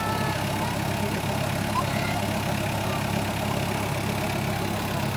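A steady low engine-like hum, unchanging like an engine idling, with a few faint short high chirps.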